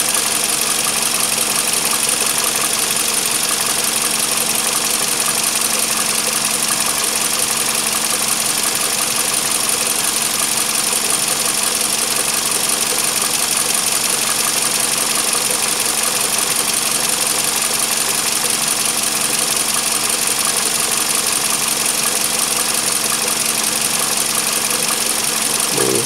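Toyota 2AZ-FE 2.4-litre four-cylinder engine idling steadily, an even hum and hiss that does not change.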